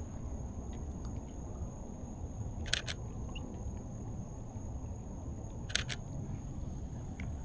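Canon EOS RP camera shutter firing twice, about three seconds apart, each a quick double click, over a steady low rumble.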